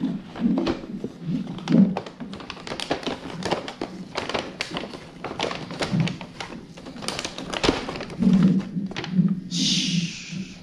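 Plastic takeout food containers being handled and opened: a busy run of clicks, taps and light knocks, with a short hiss near the end.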